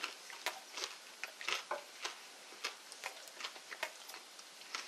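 Chewing a crisp deep-fried crab wonton (crab rangoon): quiet, irregular crunchy clicks and crackles of the fried wrapper being chewed.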